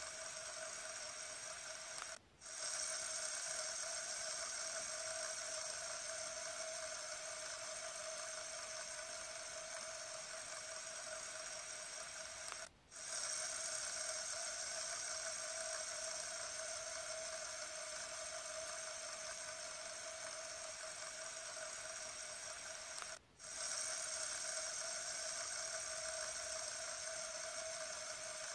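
Fidget spinner spinning: a steady whirring hum from its ball bearing, which briefly drops out three times, about ten seconds apart.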